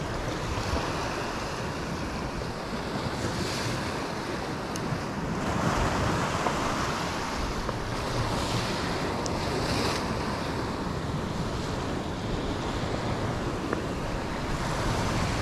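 Sea waves washing on the shore, a steady noisy wash that swells and ebbs, with wind buffeting the microphone.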